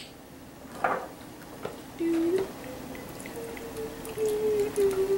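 Lemonade pouring from a carton into a glass mug, with light splashing and dripping from about two seconds in. A slow tune of held notes that step up and then down sounds over the pour.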